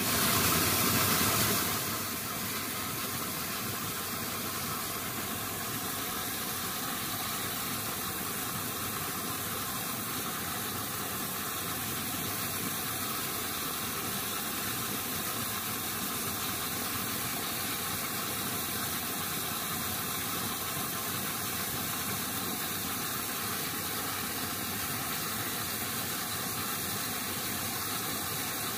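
A steady hissing noise, louder for about the first second and a half and then level.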